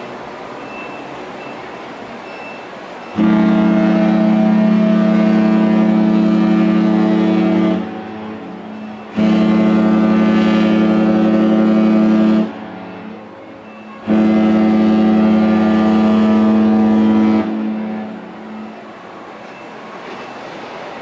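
A cruise ship's horn (the Norwegian Pearl's) sounding three long, steady blasts, each about three to four seconds, with a brief echo after each, as a horn salute to another departing ship.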